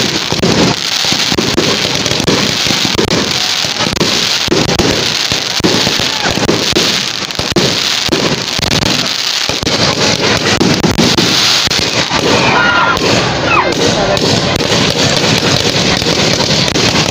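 Aerial fireworks going off overhead: a continuous dense crackle of many small pops and bangs from bursting shells and crackling stars.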